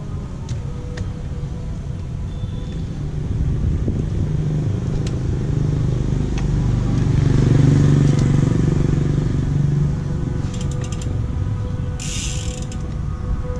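A Fnhon Blast folding bike being folded by hand: scattered light clicks and knocks from the frame and parts, a quick run of fast ticks and a short hiss near the end. Underneath is a steady low rumble of a passing motor vehicle that swells in the middle.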